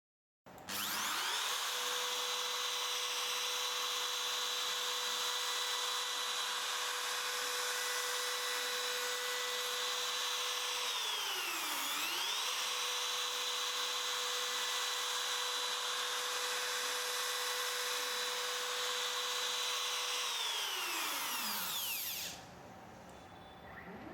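X Shaper Plus CNC router spindle spinning up to a steady high whine with a hiss over it. About halfway through, its pitch dips sharply and comes straight back. Near the end it winds down.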